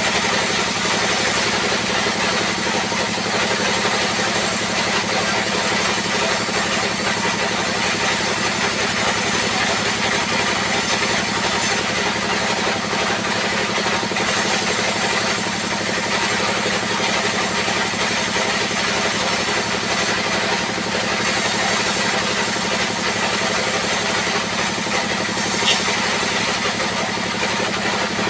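Sawmill band saw and its drive machinery running steadily as wooden slabs are fed through it, a continuous loud mechanical drone.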